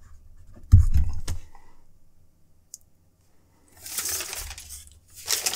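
Stylus on a graphics tablet: a few quick taps and clicks with a dull knock about a second in, then a scratchy pen stroke near the end.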